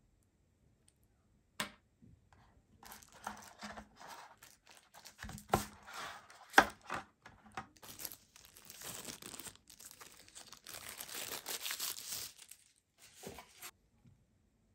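Plastic protective wrap crinkling and tearing as a power bank is pulled out of its box and unwrapped, with a click about a second and a half in and sharp snaps about five and a half and six and a half seconds in.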